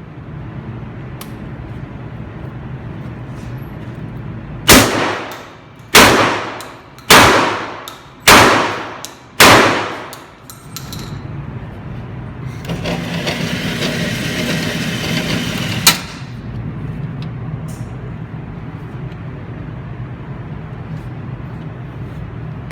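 Five gunshots fired about a second apart, each ringing out with echo, followed a few seconds later by a steady rushing noise lasting about three seconds that ends in a sharp click.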